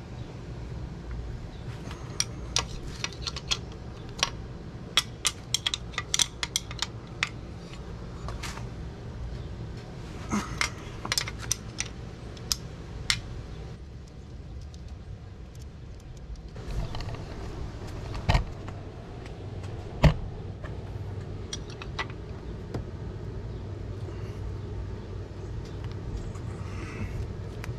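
Metal clicks and clinks of a wrench working the 16 mm bolts that hold an outboard's lower unit, coming in irregular clusters, then two louder knocks about two-thirds of the way through, over a steady low hum.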